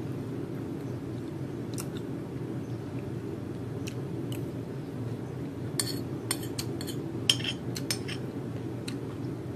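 Metal spoon and fork clinking and scraping on a porcelain plate: a few single clicks, then a quick run of clinks in the second half. A steady low hum runs underneath.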